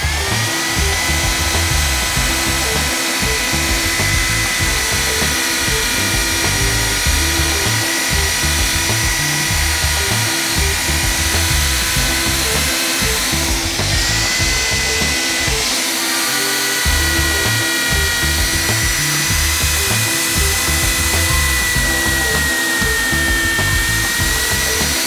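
Electric drill spinning a wire wheel brush against a rusty steel wrench, stripping the rust: a steady high motor whine with the scrub of the wire on the metal. The whine drops briefly twice about halfway through.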